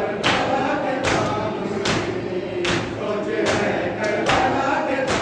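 Mourners performing matam, slapping their chests in unison about once every 0.8 seconds, seven beats in all, while a crowd of men chant a noha together.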